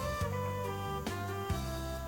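Background music: a plucked-string tune, guitar-like, with steady held notes changing about every half second.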